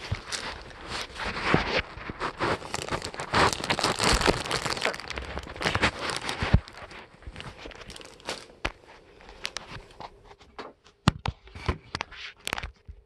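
Plastic bag crinkling and rustling as it is handled, dense for the first half or so, then thinning out to scattered clicks and taps.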